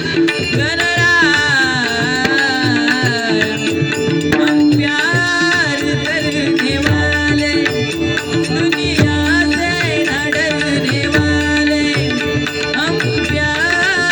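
Bhajan accompaniment: tabla drumming a steady rhythm under a gliding melodic line, played between sung verses.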